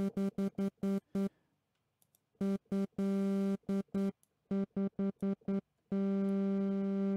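Arturia Pigments analog-engine synth patch sounding one low, buzzy note, the same pitch every time: a quick run of short staccato hits, a pause, more short hits with one longer note in the middle, then a long held note starting near the end.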